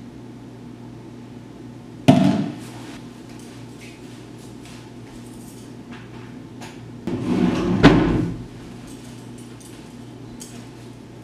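Two sharp knocks about six seconds apart over a low steady hum; the second comes amid about a second of rustling.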